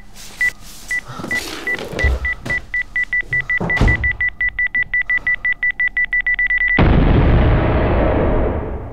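Bomb timer beeping, one high beep repeating ever faster from about two a second into a rapid stream, with a couple of low thuds and whooshes beneath; about seven seconds in, an explosion bursts out and dies away over two seconds.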